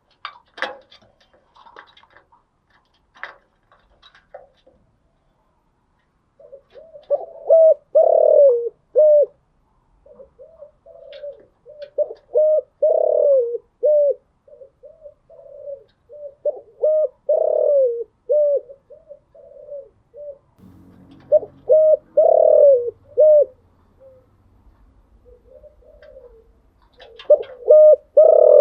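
Spotted dove cooing in about five phrases a few seconds apart, each a run of short, low, throaty coo notes. A few sharp clicks and chirps come in the first few seconds.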